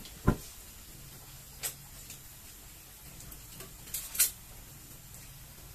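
Kitchen handling noises: one sharp knock, then a few lighter clicks and a close pair of clicks near the end, over a faint steady hum.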